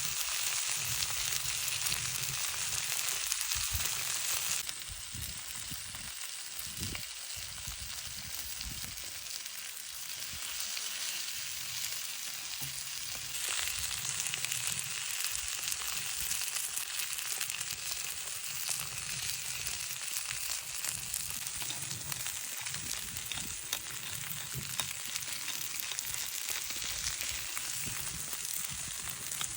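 Beefsteak frying plain in a pan, a steady sizzle. The sizzle eases a little about four seconds in and grows louder again about thirteen seconds in.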